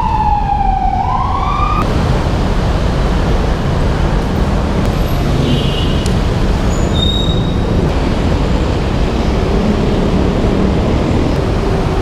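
Steady wind rumble on the microphone and city traffic noise while riding a bicycle through traffic. In the first two seconds a siren-like wail falls and then rises sharply, and a couple of brief high squeaks come around the middle.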